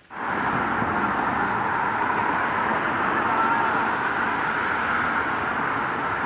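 Steady rain mixed with passing street traffic, an even dense hiss. The sound cuts out for an instant at the very start and swells straight back in.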